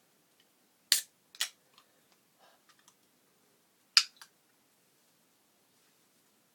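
Sharp clicks and snaps of an aluminium energy drink can being handled: two about a second in, half a second apart, and a third, as loud, about four seconds in, with a few faint ticks between.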